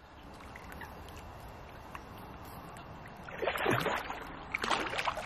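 Water splashing in the shallow margin as a large mirror carp is lowered back in and kicks away: two bursts of splashing, the first about three and a half seconds in and the louder, the second about five seconds in.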